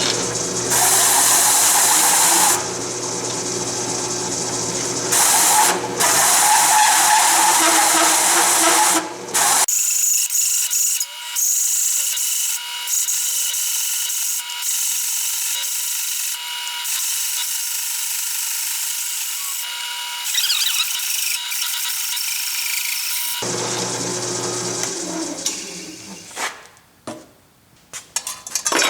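Drill press running at low speed with a 6-inch hole saw cutting a disc from metal plate: a steady motor hum under a rough, grinding cut. Near the end, a series of sharp metal clanks and clinks.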